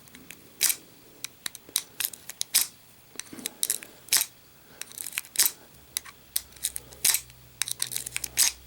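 Metal lock pick raked quickly in and out across the pin tumblers of a Brinks R70 stainless steel padlock while a turning tool holds tension on the core: a string of sharp, irregular clicks and scrapes.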